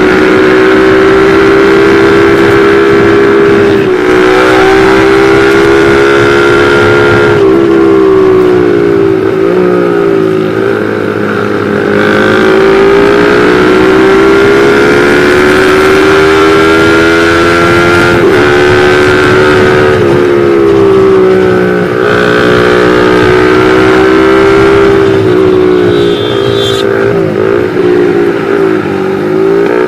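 Motorcycle engine running at high revs, recorded on board the moving bike, its pitch repeatedly climbing and dipping as the throttle opens and eases.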